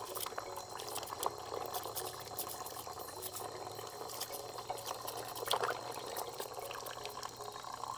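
Snails being scrubbed by hand in a basin of water: water sloshing and splashing, with many small clicks of the shells knocking together.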